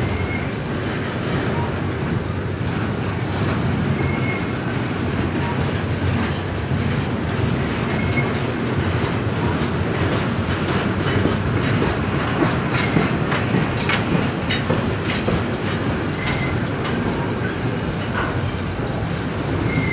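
A double-stack intermodal container train rolls past on well cars: a steady rumble of steel wheels on the rails, with sharp clicks and knocks from the wheels that come thicker in the second half. A brief high squeal sounds every few seconds.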